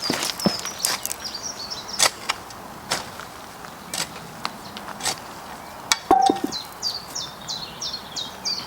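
Sharp, separate clicks about once a second from hand work in a garden bed. A bird sings a series of short, high, falling notes over the second half.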